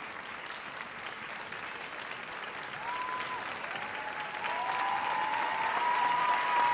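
Audience applauding, the clapping slowly swelling in loudness.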